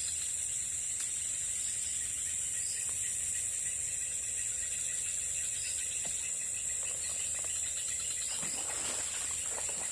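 Steady high-pitched insect chorus, one unbroken shrill drone.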